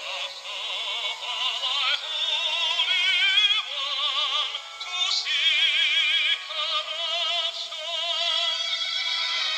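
Background music carried by a high melody sung or played with heavy vibrato, thin and without bass.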